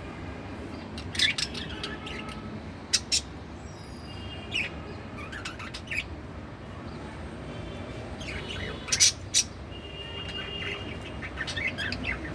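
Pet budgerigar chirping: scattered short, sharp chirps with softer warbled notes between them, the loudest chirps about three quarters of the way in.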